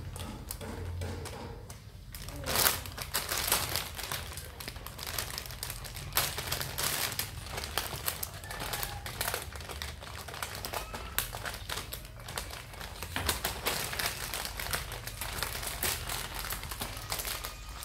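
Plastic crinkling and crackling irregularly as kittens scramble about in it, with a sharper crackle about two and a half seconds in.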